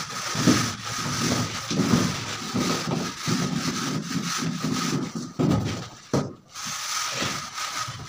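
A long straightedge scraped and rubbed in repeated strokes across a cement-plastered wall, checking and levelling the mortar. There is a brief pause about six seconds in.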